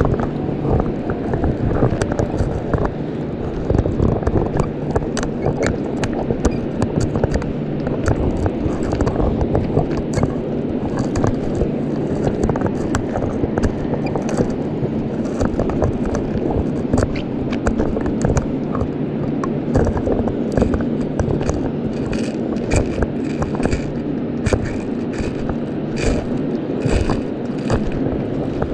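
Muffled underwater scraping and crackling from a GoPro taped to a magnet fishing magnet as it is dragged along the riverbed, heard through the camera's waterproof case. Dense sharp clicks run over a steady dull rumble.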